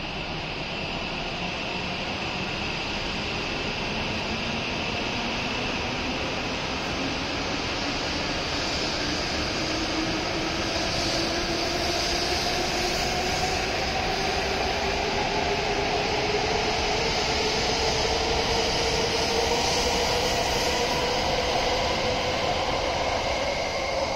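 W7-series Shinkansen train pulling out of the station and accelerating: the whine of its traction motors climbs steadily in pitch over the running noise of the cars, and the whole sound grows louder as it gathers speed.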